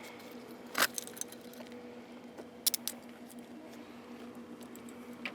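Sharp clicks and light rattles of small objects being handled during a pat-down search, the loudest about a second in, over a steady low hum.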